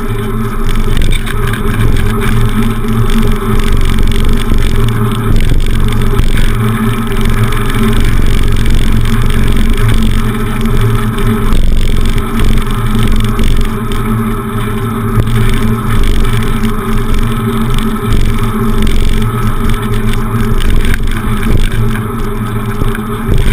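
Wind buffeting a handlebar-mounted camera's microphone on a moving bicycle: a loud, unbroken, fluttering rumble with steady road noise beneath it.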